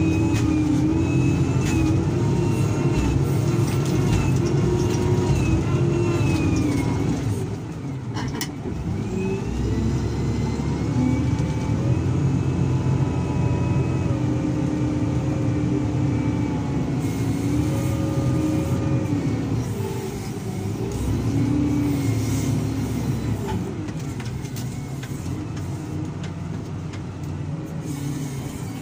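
SDLG wheel loader's diesel engine running under load, heard from the operator's cab, its pitch rising and falling as the bucket is worked. It eases off briefly about eight seconds in and again around twenty seconds.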